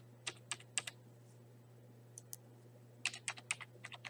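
Typing on a computer keyboard: a few separate keystrokes, a pause of about two seconds, then a quick run of keystrokes near the end.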